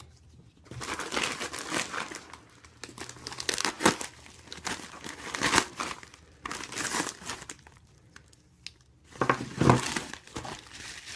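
Packaging being unwrapped by hand, crinkling and tearing in spells with short pauses, as a watch's shipping box is opened.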